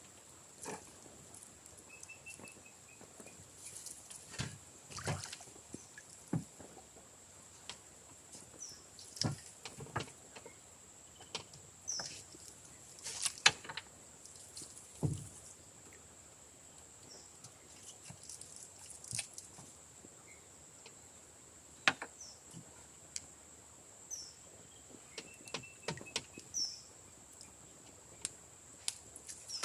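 Scattered splashes and knocks of water and fishing gear as a net is worked from a small boat, some louder than others. Under them runs a steady high-pitched tone, and there are a few short chirps.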